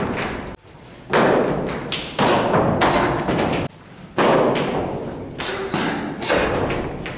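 Series of loud thumps and impacts from a hand-versus-stick sparring drill: strikes, blocks and feet stamping on the floor, each ringing on in the hall. Fresh bursts begin suddenly about a second, two, four and six seconds in, broken by brief quiet gaps.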